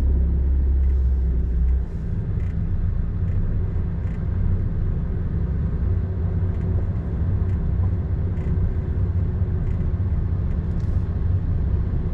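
Scania S500 truck's diesel engine running, heard from inside the cab: a steady deep drone that eases off about two seconds in and then carries on evenly.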